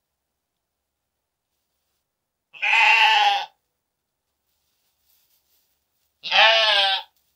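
Two sheep bleats, each about a second long and about three and a half seconds apart; the second one quavers.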